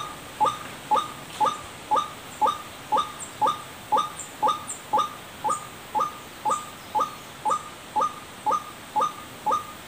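White-breasted waterhen (ruak-ruak) call played as a bird lure: a short, clipped call repeating very evenly, about twice a second.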